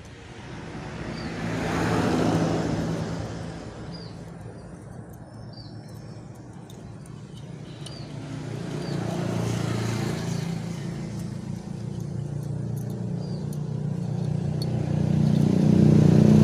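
Engines of passing road traffic, rising and fading: one swell about two seconds in, another around ten seconds, and a louder one building near the end.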